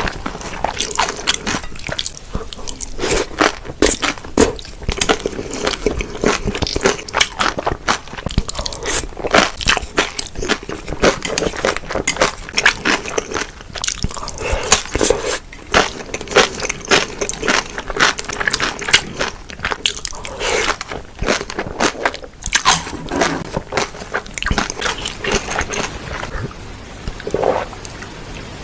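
Close-miked chewing and biting of spicy mixed cold noodles: dense, irregular crunchy and wet mouth sounds that ease off near the end.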